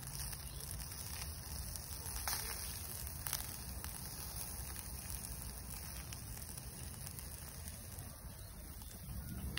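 Chicken skewers sizzling on a wire grill over a small charcoal burner: a steady hiss with two sharp pops, about two and three seconds in, over a low background rumble.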